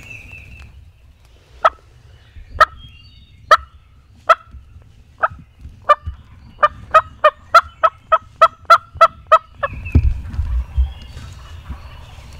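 Turkey hen calling imitated on a hunter's turkey call: a few spaced single notes, then a quickening run of about a dozen sharp yelps at three to four a second. It is the kind of sequence used to draw a gobbler in.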